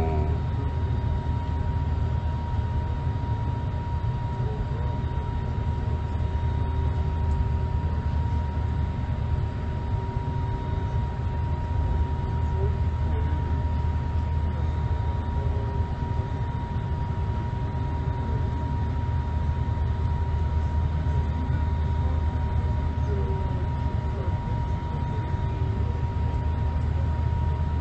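Airliner cabin noise while the plane taxis: a steady low rumble from the engines and airflow, with a thin steady whine.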